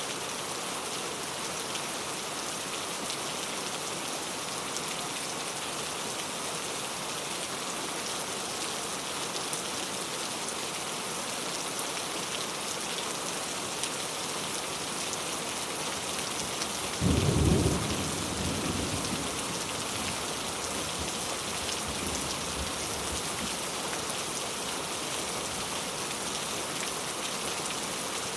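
Steady rain falling, with one clap of thunder a little past halfway through that rumbles off over the next few seconds.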